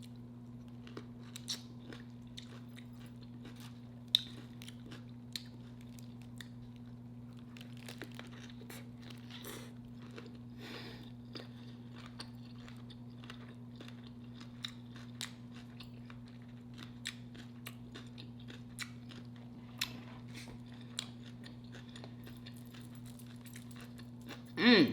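A person biting and chewing a pickle-wrapped Italian grinder sandwich close to the microphone: scattered crisp crunches and mouth clicks, over a steady low hum.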